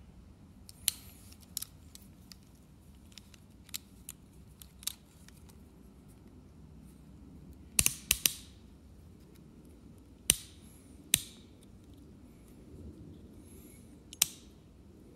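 Sharp metallic clicks of snap ring pliers and a steel snap ring being handled. They come scattered, with a quick run of three or four about halfway through and single louder clicks later.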